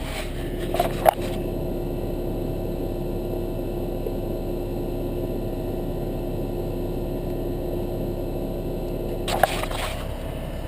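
An air-conditioner condensing unit, its compressor and condenser fan motor, running with a steady hum and an even tone. Brief scraping and clicking handling noises come about a second in and again near the end.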